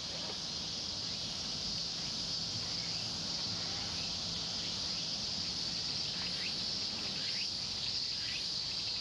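Steady, high-pitched drone of insects, unbroken throughout, with a few faint short chirps in the last few seconds.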